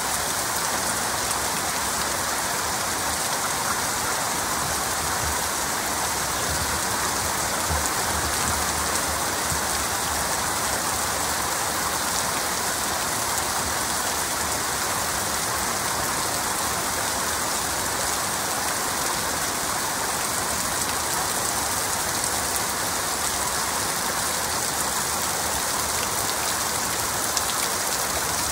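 Heavy rain falling steadily, an even, dense hiss of drops with no distinct thunder.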